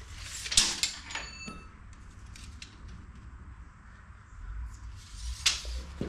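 Metal clanks and taps from a wrench at the steel bed rail of a Wood-Mizer LT35 sawmill while the rail height is adjusted. A sharp knock about half a second in is followed by a short metallic ring, and a second sharp knock comes near the end.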